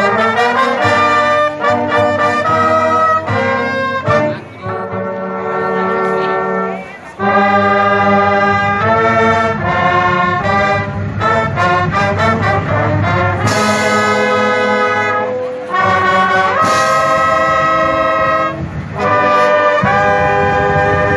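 Marching band brass playing a piece in held chords and short phrases, with brief breaks between them and a steady low layer underneath. Two bright crashes ring out in the second half.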